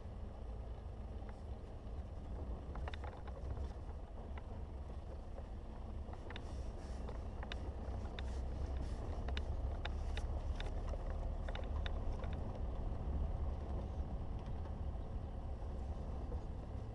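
Four-wheel-drive vehicle driving along a rough dirt track: a steady low rumble of engine, tyres and wind, growing a little louder about halfway through, with scattered sharp clicks and knocks.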